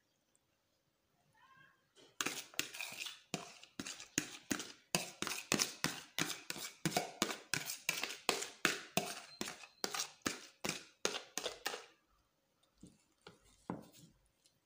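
Spoon scraping and knocking the leftover-rice mixture out of a plastic tub into a frying pan. It comes as a run of quick strokes, about three a second, starting about two seconds in and stopping a couple of seconds before the end, with a few fainter strokes after.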